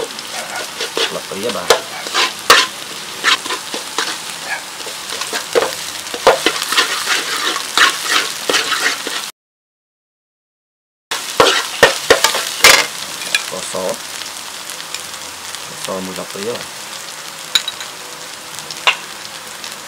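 Sliced shallots sizzling in hot oil in a metal wok while a metal spatula stirs, scraping and clicking against the pan. About halfway through, the sound cuts out completely for a couple of seconds, then the frying and stirring resume, a little quieter.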